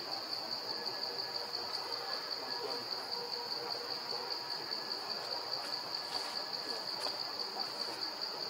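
Insect chorus: a steady, high-pitched chirring that pulses several times a second, with a few faint clicks in the middle.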